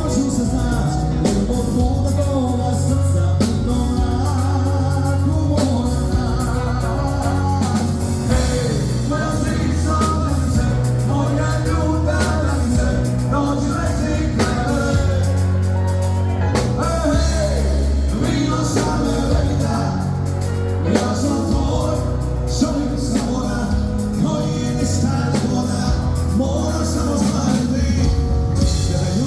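Rock song with singing over a steady drum beat and heavy bass.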